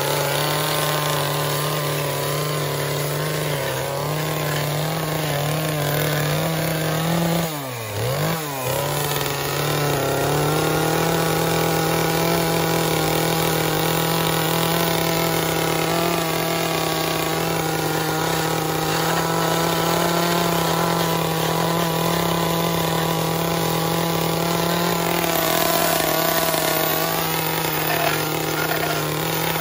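Chainsaw engine running steadily at high revs. About eight seconds in, the pitch drops sharply and climbs back up, then it runs on evenly.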